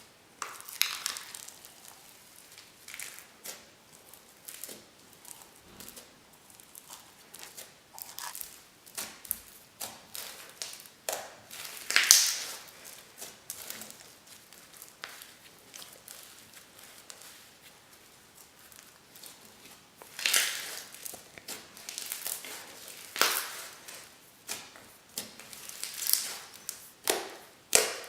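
Crunchy fake-snow slime being squeezed and pressed by hand, giving irregular crackles and pops, loudest about twelve seconds in and again in a cluster near the end.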